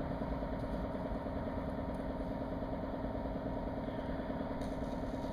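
A machine running steadily with a constant, unchanging hum.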